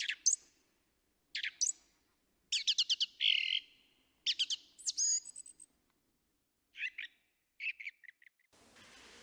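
Bird song: short, high chirps and quick trills in separate bursts, about a second apart, with silent gaps between them.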